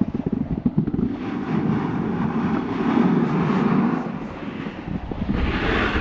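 Board edges sliding and scraping over chopped-up piste snow, a rough rumble that chatters over the bumps in the first second and then runs steadier. Wind buffets the microphone and grows louder about five seconds in.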